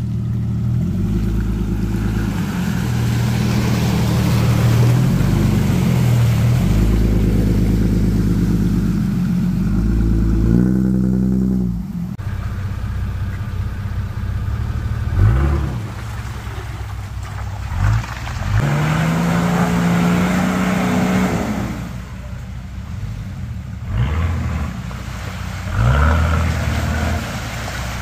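Off-road 4x4 engines, first a Jeep and then a Nissan Patrol, running under load and revving up repeatedly as they crawl through deep mud ruts. The revs rise in short surges several times in the second half.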